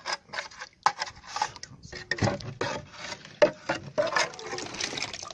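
A rusty metal rod scraping mud out of a metal money box over a tub of water, in irregular scrapes with a few sharp knocks of metal on metal.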